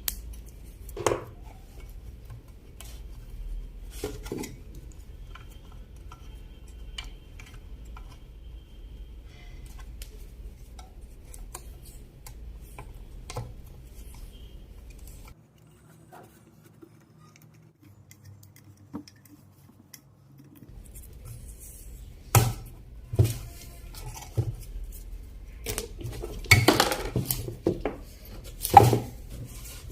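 Scattered metallic clicks, clinks and knocks as an old electric steam iron is fitted back together by hand, with a run of louder knocks in the last several seconds.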